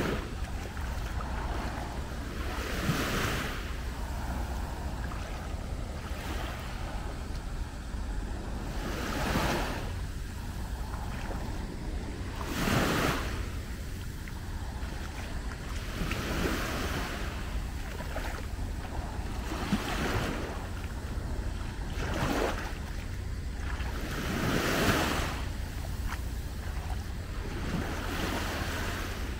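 Small sea waves breaking and washing onto the beach about every three seconds, over a steady low rumble of wind on the microphone.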